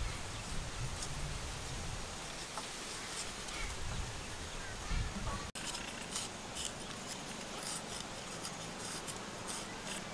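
A broad cleaver-like knife shaving slivers off a raw carrot, heard as a run of short, crisp cutting strokes several times a second. The strokes are clearest in the second half, with a low rumble underneath in the first half.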